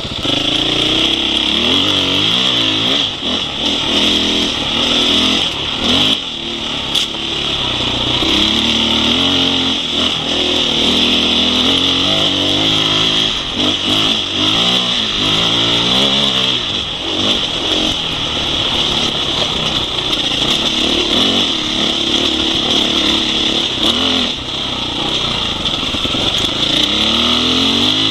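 Husqvarna 501 Enduro's single-cylinder four-stroke engine under way off-road, its pitch rising and falling again and again as the throttle is opened and closed, with a steady high hiss over it.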